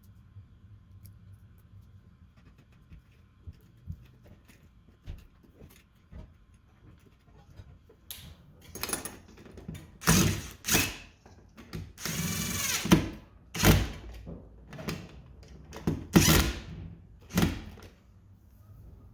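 Tools being handled while wiring a junction box: faint clicks at first, then a series of loud clacks and clatters, with a brief whirr of a power driver about two-thirds of the way through.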